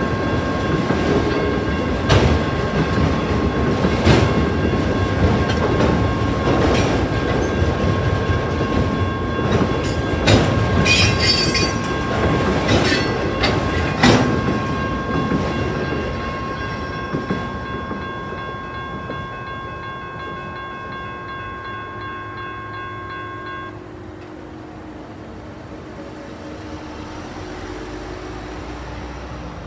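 Freight train of autorack cars rolling past with wheels clicking and clattering over the rails, while the crossing's electronic bells ring steadily. The train noise fades out past the middle, and the bells cut off about two-thirds of the way in, as the crossing clears.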